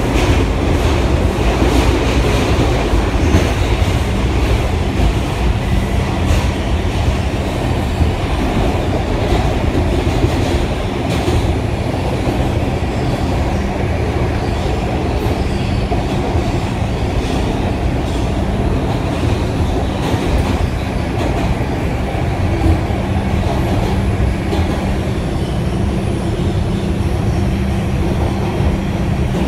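Inside an R142 subway car running at speed through a tunnel: a steady rumble of steel wheels on the rails under a constant hum, with the wheels clicking over rail joints, more often in the first half.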